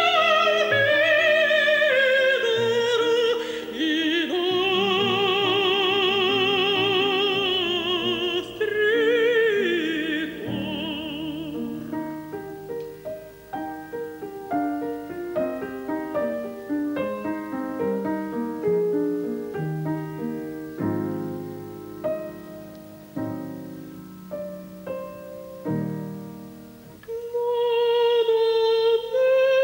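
A female opera voice sings a phrase with wide vibrato, holding long notes, with piano. After about ten seconds the voice stops and a solo piano passage follows, and the voice comes back in near the end on a held, wavering note.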